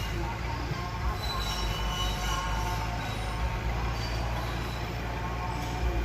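Mitsubishi BD2F crawler bulldozer working, its diesel engine rumbling steadily under the squeal of its steel tracks.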